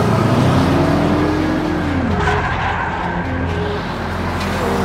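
Race-car sound effects laid over toy cars racing: an engine note holds, then falls away about two seconds in, over a steady rumble.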